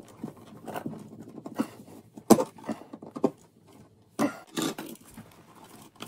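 Screwdriver tightening the ground screw on a metal electrical box: short scrapes and scattered sharp metallic clicks, the loudest a little over two seconds in.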